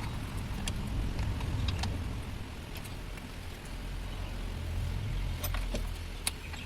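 Low, steady rumble of a motor vehicle engine running, with a few light metallic clicks over it, mostly near the end.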